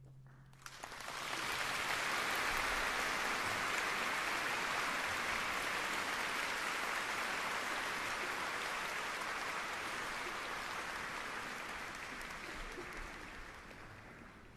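Audience applauding in a large concert hall, starting about a second in, holding steady, then dying away near the end.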